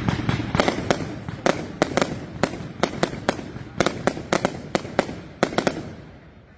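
Fireworks battery firing a rapid string of sharp bangs. Dense at first, then about two to three separate reports a second, dying away near the end.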